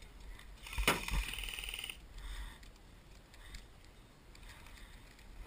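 An airsoft rifle firing a short full-auto burst of about a second, a rapid even rattle opened by a sharp crack.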